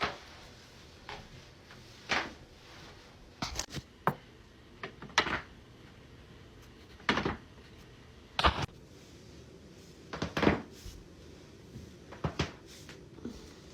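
Spinal joints cracking during chiropractic back adjustments: about nine sharp, crunchy pops spaced a second or two apart, several coming as quick clusters of two or three cracks.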